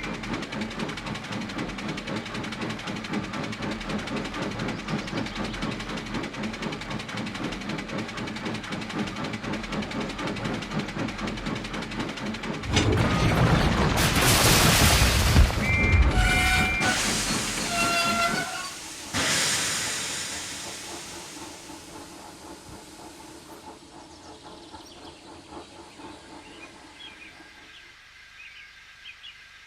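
Model steam locomotive running, with a steady rhythmic chuffing. About 13 seconds in comes a loud rush of noise and steam hiss, with short two-tone whistle blasts. It then dies away to faint birdsong.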